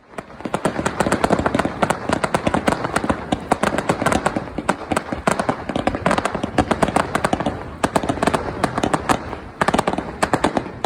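Fireworks crackling and popping: a dense, continuous run of sharp bangs, several a second, that thins briefly about nine and a half seconds in.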